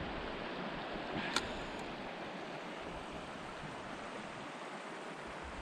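Steady rush of a flowing river, with one short, sharp click about a second and a half in.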